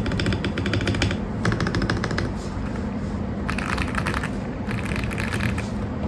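Typing on a Press Play Rover84 V4 mechanical keyboard with pre-lubed KTT Kang White switches, polycarbonate plate and foam-filled, tape-modded plastic case: bursts of fast, clacky keystrokes with short pauses between them.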